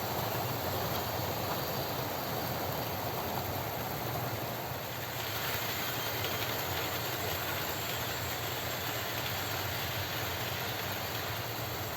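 OO gauge model train running along the track, a steady whirring of the locomotive's small motor and its wheels rolling on the rails.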